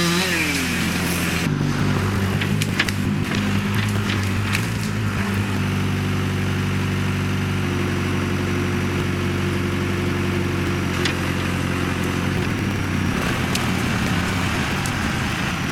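Tractor engine running steadily, its note settling after falling away in the first second, with a few sharp knocks and clicks over it.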